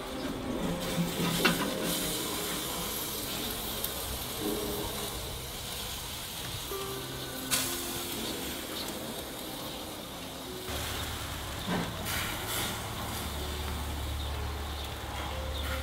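Meat on skewers sizzling and hissing over hot charcoal, with a few sharp crackles, under soft background music; a low steady hum joins about two-thirds of the way through.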